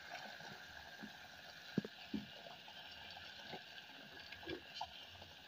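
Spoon stirring potato chunks into meat gravy in an earthenware pot, with scattered soft knocks of the spoon against the pot, the sharpest a little under two seconds in.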